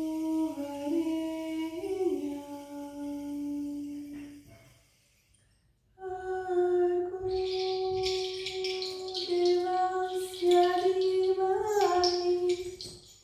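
A woman humming a slow, wordless melody in long held notes that slide between pitches, breaking off for about a second in the middle. In the second half a dry, rattling shake joins the humming.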